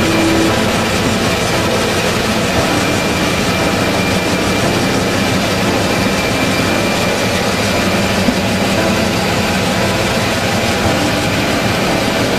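DF-class diesel locomotive's engine running steadily while the locomotive stands still.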